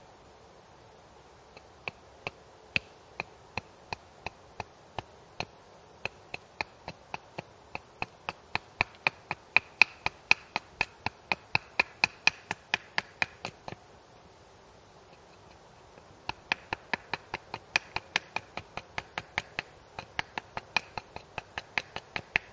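Small hatchet taking quick, short chops at a piece of wood held upright on a chopping block, shaping a splitting wedge. The chops come in a steady run of about three a second, stop for a couple of seconds past the middle, then start again.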